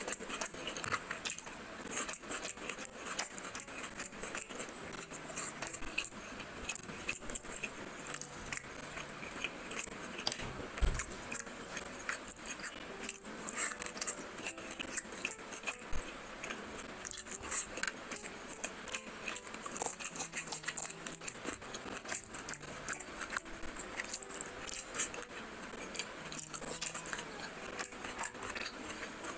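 Close-miked chewing and eating of fried fish: a steady run of small wet smacks, clicks and light crunches from the mouth, with a single dull bump about eleven seconds in.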